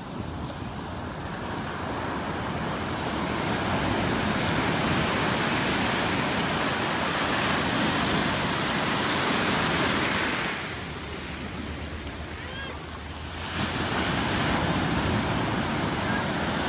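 Ocean surf breaking and washing up the beach, a steady rush of water that builds over the first few seconds, eases for a few seconds past the middle, and swells again.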